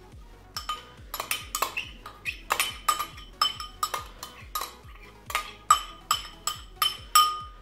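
Metal spoon clinking and scraping against ceramic bowls as chopped onion is scraped out into a bowl of minced meat. It makes many sharp, ringing clinks at an uneven pace.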